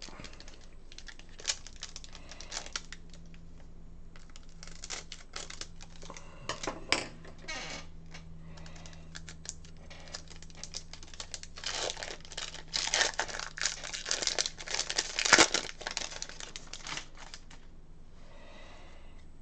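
Crinkling and tearing of a trading-card pack wrapper as it is torn open and handled, in a run of short crackles that is thickest and loudest in the last third.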